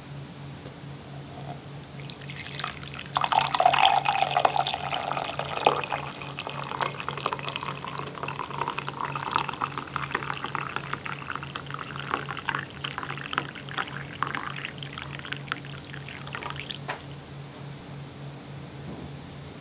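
Hot coffee poured in a stream into a ceramic mug, starting about three seconds in and loudest at first, the splashing rising in pitch as the mug fills and stopping a few seconds before the end. A steady low hum runs underneath.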